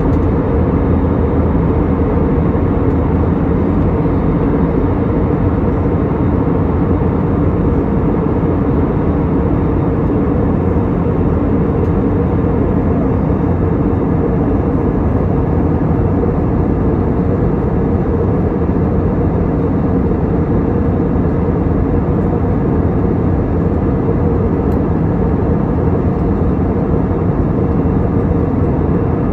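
Cabin noise of an Airbus A320neo with CFM LEAP-1A engines in descent, heard from a seat over the wing: a steady rush of airflow and engine noise with a steady low hum.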